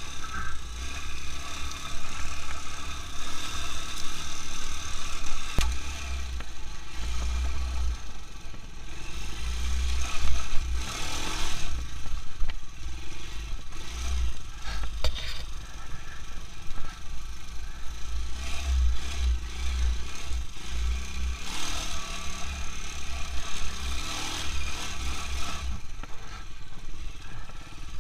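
Quad bike (ATV) engine running under throttle while riding, the revs swelling and easing off a few times. Wind buffets the microphone.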